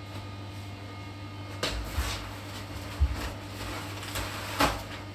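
A few knocks and clatters of someone moving about and handling things in a small tiled bathroom, starting about a second and a half in, with a sharp click near the end. A steady low hum runs underneath.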